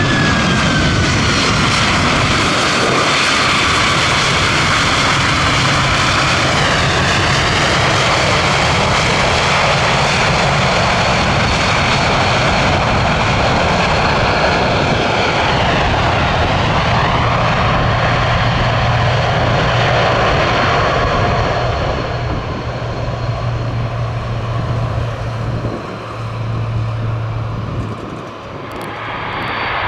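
JAL Boeing 767-300ER's jet engines running loud as the airliner comes in to land, with a high whine falling in pitch in the first seconds. The sound eases after about twenty seconds, dips briefly and then swells again near the end.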